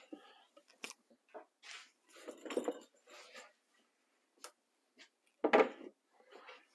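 White melamine cabinet panel being handled and set down on top of a frameless cabinet box: scattered light knocks and scrapes of board on board, with the loudest thump about five and a half seconds in as the panel goes into place.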